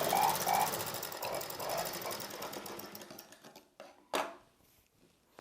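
Sewing machine stitching a dart through a silk blouse piece and its lining, running with an even rapid needle rhythm, then slowing and stopping about three seconds in. A single sharp click follows about a second later.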